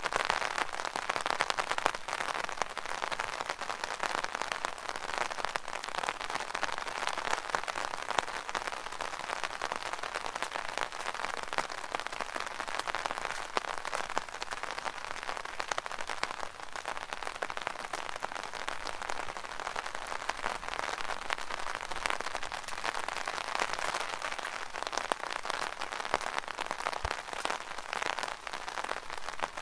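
Rain pattering on an umbrella canopy: a dense, steady drumming of countless small drops that swells a little and eases back over the seconds.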